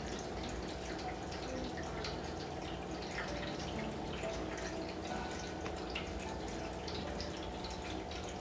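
Steady trickle and drip of water from an electric pet drinking fountain, over a low steady hum.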